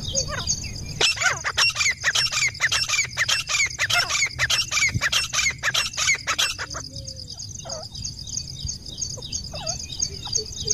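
Grey francolin calling: a loud, fast run of repeated call notes from about a second in to nearly seven seconds, then fainter, sparser notes. A steady high-pitched buzz lies underneath.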